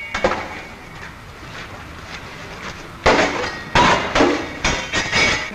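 Fencing weapons clashing, metal on metal: a low hiss for about three seconds, then a quick run of sharp clashes.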